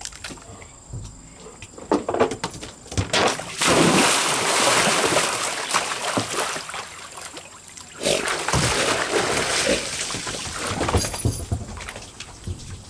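A dog diving and splashing in a small plastic stock-tank pool, ducking under for a sunken Kong toy: two long stretches of heavy splashing, starting about four seconds in and again about eight seconds in.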